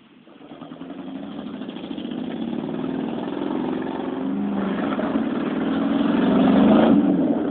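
Lincoln Town Car's V8 engine running as the car is driven and turned around, growing steadily louder as it comes closer.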